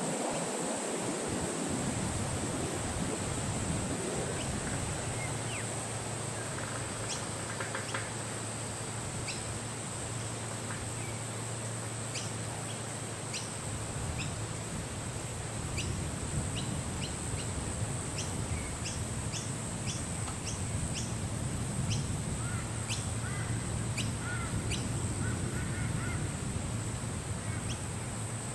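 Outdoor nature ambience of wind and birds. A steady low rush of wind runs under a constant high hiss, and short bird calls come scattered through the middle, densest in the second half.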